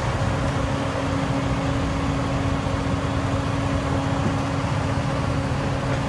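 Vehicle engines idling steadily: a constant low hum, with a steady tone that sets in just after the start.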